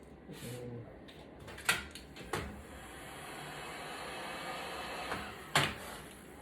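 Three sharp clicks of hard tools or parts knocked on a work surface, over a steady rushing hiss that builds from about two and a half seconds in.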